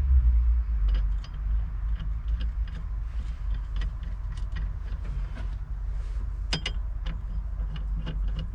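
Irregular light metallic clicks and clinks of steering-hub hardware being handled, a few a second, with a louder cluster about six and a half seconds in, over a low steady hum.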